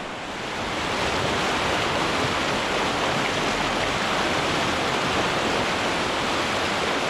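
Rushing water of a small mountain creek, a steady hiss that swells over about the first second and then holds even.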